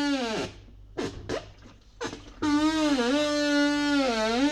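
Drean 505 top-loading washing machine making its wash-cycle noise: a long pitched squeal, heard twice with the same rise and fall, about two seconds each. It comes from the basket shifting on the shaft because the drive bushing is broken.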